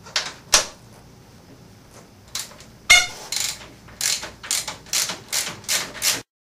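Ratchet wrench clicking in short strokes as it turns the nut off a Ducati Monster 620's motor mount bolt. There is one loud sharp clack about three seconds in, then a quick run of about six ratcheting strokes near the end.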